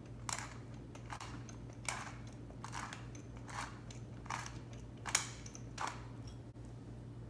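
Hand-twisted stainless-steel pepper mill grinding black peppercorns, a short crunch with each twist, about one every 0.8 s, eight in all. A steady low hum runs underneath.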